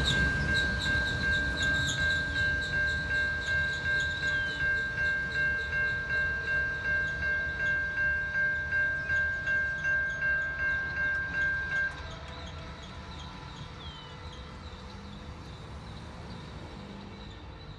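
Railway level-crossing warning bell ringing steadily at about two strokes a second, then cutting off suddenly about twelve seconds in as the crossing clears, with the rumble of a passing train fading away underneath.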